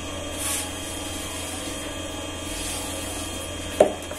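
Water poured from a jug into a flower pot over a steady machine hum, with a short rush of water about half a second in and one sharp knock near the end.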